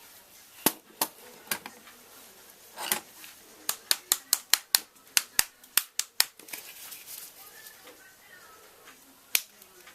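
Sharp clicks and taps of small RC buggy suspension parts and tools being handled on a workbench: a few scattered clicks, then a quick run of about a dozen in the middle, and a last single click near the end.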